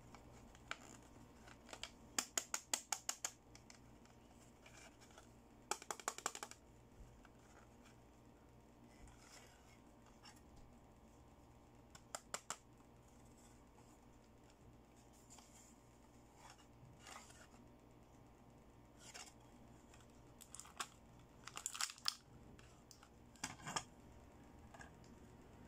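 Hard plastic toy makeup compact, strawberry-shaped, being handled and opened: sharp plastic clicks and fingernail taps in short clusters. The first is a quick run of about eight clicks a couple of seconds in, and the clicks come thickest again near the end.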